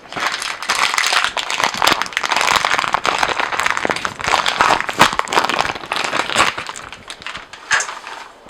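Crinkling and rustling of a packaged pancake-mix bag as it is handled and emptied: a dense crackling rustle that thins out after about six seconds, with a few separate crinkles near the end.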